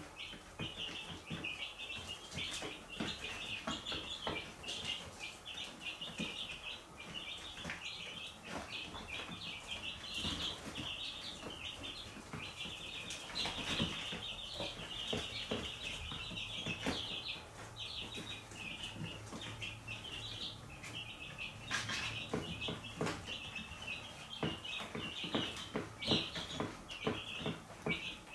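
A group of chicks peeping continuously, many short high peeps overlapping without a break, with scattered light knocks among them.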